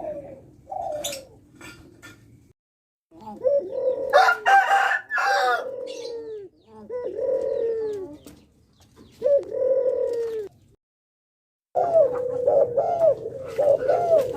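Puter pelung derkuku doves cooing: phrases of repeated low arching coo notes, the multi-note 'kuk' call these birds are kept and bred for. The cooing breaks off twice, briefly and suddenly, and starts again.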